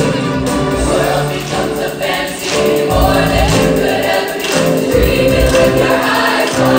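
Stage show music: many voices singing together as a choir over a band backing with a heavy beat.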